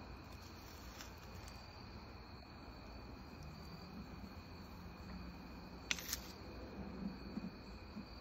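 Crickets chirring steadily and faintly, with a sharp click about six seconds in.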